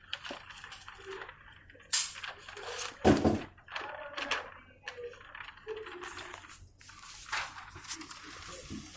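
Two sharp metallic clinks about a second apart, over faint scattered handling noise.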